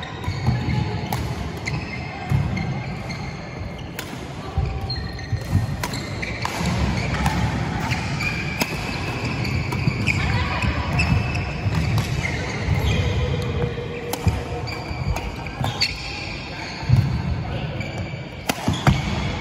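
Doubles badminton rally: sharp racket strikes on the shuttlecock again and again, with shoes squeaking and feet thudding on the wooden court floor.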